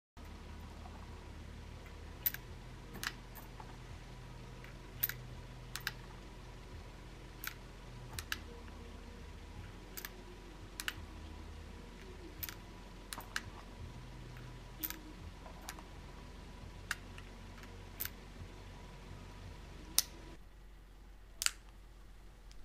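Nagant revolver being loaded by hand: a series of sharp metallic clicks, about one a second, as cartridges are pushed one by one into the cylinder through the loading gate and the cylinder is turned on.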